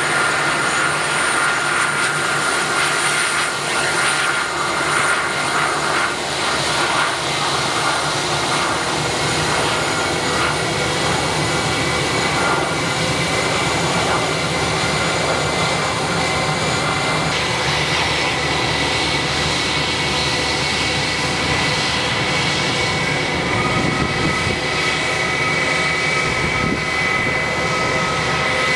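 Airbus A319's IAE V2500 jet engines running at low taxi thrust: a steady whine with high whistling tones, which shift a little about two-thirds of the way through.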